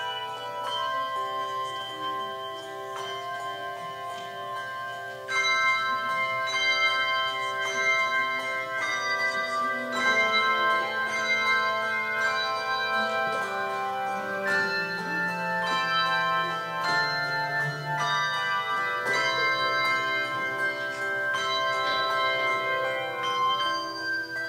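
Handbell choir playing: many bronze handbells struck together in chords, each note ringing on long after the strike. The playing grows louder about five seconds in.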